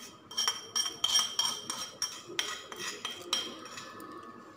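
A spoon scraping and tapping inside a small metal tadka pan to empty out the cooled tempering: a quick run of metallic clinks, each with a short ringing tone, thinning out near the end.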